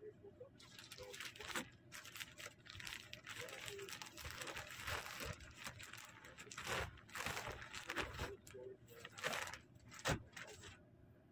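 Plastic mailer bag crinkling and rustling as it is handled, in a dense run of short, sharp crackles that dies away near the end.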